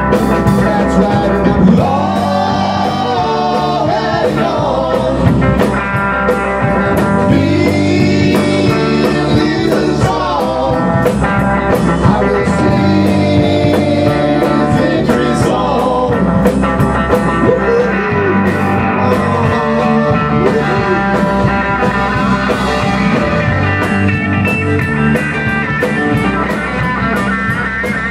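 A rock band playing live: electric guitar, bass guitar and a Tama drum kit together at full volume, with a guitar or vocal line bending up and down in pitch.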